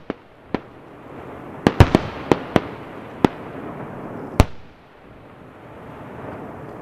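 Aerial firework shells bursting in a display: about nine sharp bangs in the first four and a half seconds, several in quick succession about two seconds in. They sit over a continuous rumble that dies down after the last bang and swells slightly again near the end.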